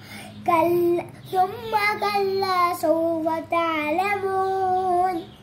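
A young girl's voice chanting Quranic recitation in a melodic style, drawing out long held notes that glide between pitches; it begins about half a second in and falls away near the end.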